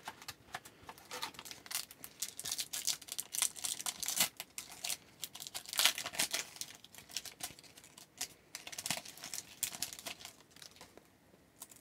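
A trading-card pack wrapper crinkling and being torn open, with the cards handled, in many irregular crackles that die down near the end.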